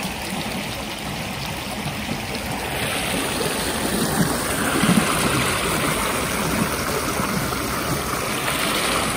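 Shallow woodland creek running over rocks and small riffles, a steady rush of water that grows a little louder a few seconds in.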